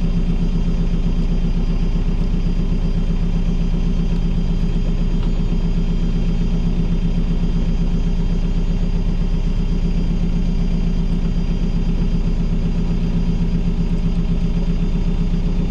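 Inboard diesel engine of a Broads hire cruiser running steadily at low revs, an even hum without change.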